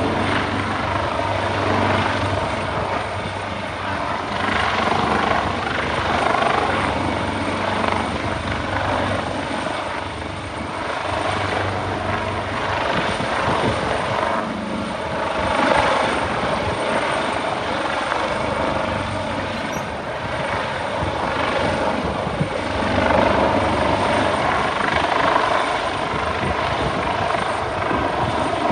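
Helicopter hovering overhead with a rescuer on its hoist cable: a steady rotor and engine rush with a fast chop underneath, swelling and easing slowly as the machine holds position and drifts.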